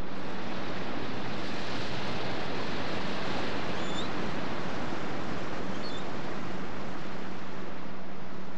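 Steady, even hiss with a low steady hum underneath and a couple of faint chirps, about four and six seconds in.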